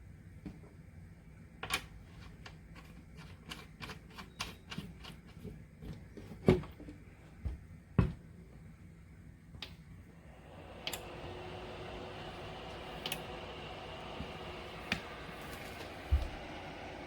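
Irregular clicks and a few louder knocks, then about ten seconds in a small space heater's fan starts a steady whooshing run.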